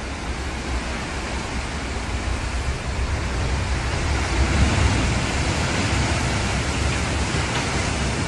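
Storm waves breaking and washing over a seafront: a steady rushing noise of surf and wind with a deep rumble, swelling a little about halfway through.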